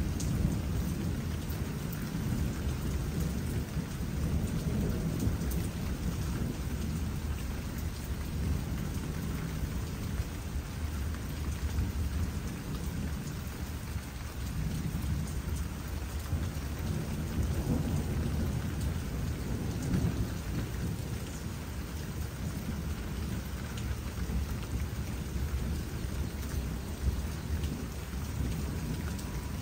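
Steady rain falling, with thunder rumbling low underneath that swells and eases over several seconds at a time.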